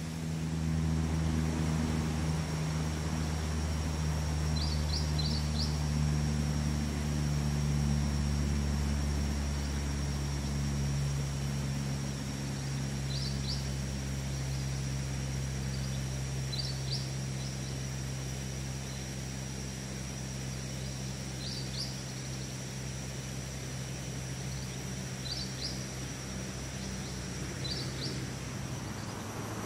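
A vehicle engine's low hum, present from the start and slowly fading away. A bird gives short quick chirps every few seconds over it.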